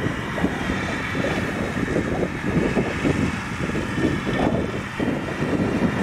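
Claas Lexion 770 Terra Trac combine harvester running steadily under load while harvesting grain corn with an 8-row corn picker header.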